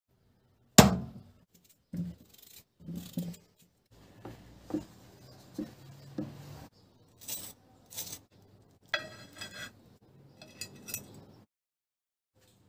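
Kitchen utensils and cookware handled: a sharp knock with a ringing decay about a second in, then short knocks and scraping, and a run of ringing clinks of metal and dishes near the end.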